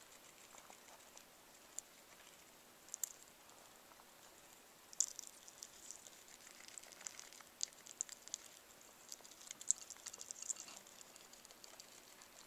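Pet rat fishing peas out of a shallow water bowl and eating them: faint scattered clicks, taps and small splashes, sparse at first and thickening from about halfway in.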